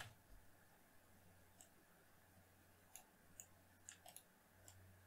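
Near silence broken by about eight faint, irregularly spaced clicks from a computer keyboard and mouse.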